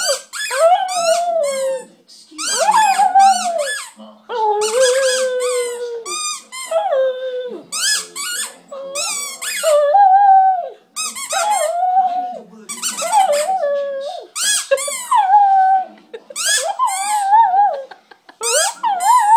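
A rubber squeaky ball squeaked in bursts, with a Shih Tzu howling along in long wavering cries that mimic the squeaks. This goes in bouts of a second or two, again and again.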